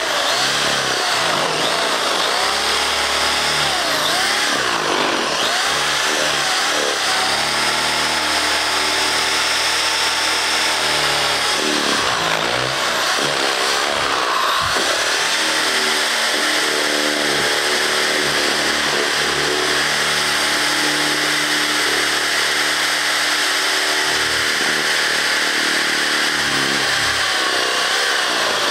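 Power drill boring down through a stack of paperback books, its motor running continuously under load, with the paper being shredded into shavings. The motor pitch wavers and dips several times as the bit bites into the paper.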